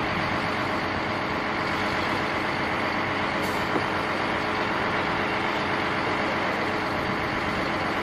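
Concrete mixer truck running, its diesel engine giving a steady, even noise without breaks.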